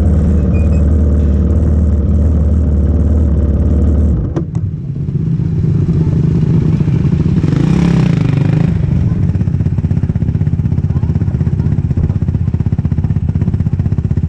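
Yamaha YFZ quad engine running at idle. About four seconds in the sound drops and settles into a lower, pulsing idle, with a brief rush of noise around eight seconds.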